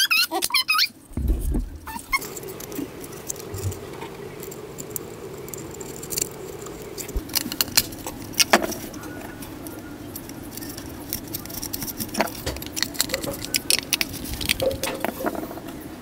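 A screwdriver and hands working a small wooden case: scattered clicks, taps and scrapes over a steady low hum.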